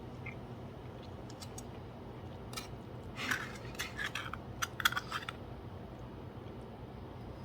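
Cutlery being handled: a cluster of small clicks and scrapes from about two and a half to five seconds in, over a steady low hum.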